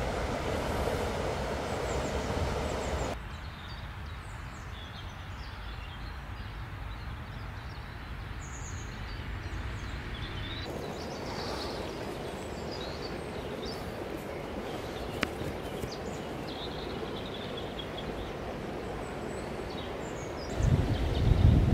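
Riverside ambience: the steady rush of a small river's flowing water with birds chirping now and then. Near the end, gusts of wind buffet the microphone with loud low rumbles.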